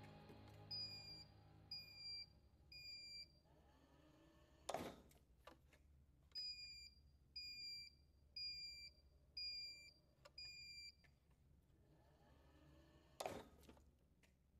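Faint electronic beeping from an electric mobility scooter's beeper, about one short beep a second. Three beeps, then a pause, then five more; the pattern is typical of a scooter's reversing warning. Two brief loud whooshes or thumps sound about five and thirteen seconds in.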